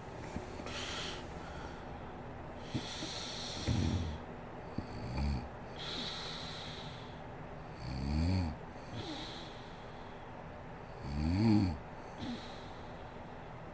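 A sleeping woman snoring, a snore every three to four seconds, each arching up and down in pitch, with breathy hiss between; the loudest snore comes late on.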